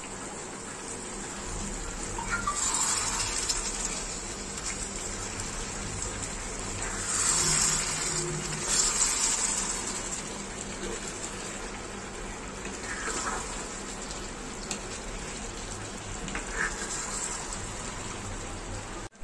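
Chicken curry in thick gravy stirred with a metal spatula in a kadhai, giving wet sloshing and scraping in several louder bursts over a steady simmer.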